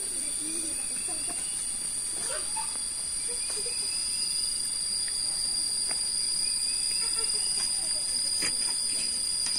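Steady, high-pitched insect chorus droning without a break, with faint voices talking underneath.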